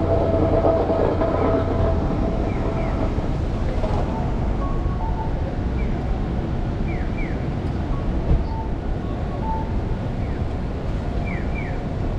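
A passing train droning by, its hum fading away over the first few seconds. It leaves steady street noise with a few short high chirps that come in pairs.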